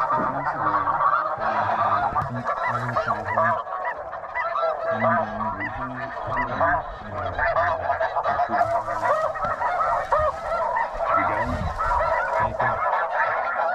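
Snow geese calling, many birds at once: a dense, unbroken chorus of short overlapping honks.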